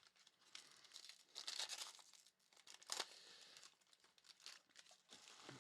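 Faint rustling and tearing of a foil trading-card pack wrapper being torn open and crinkled, with one sharp click about three seconds in.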